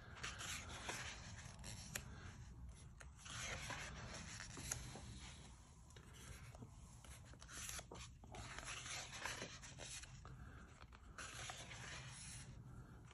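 Faint rustling and rubbing of the glossy paper pages of a large hardcover book as they are turned and smoothed flat by hand, with a few small ticks and soft swells as pages flip over.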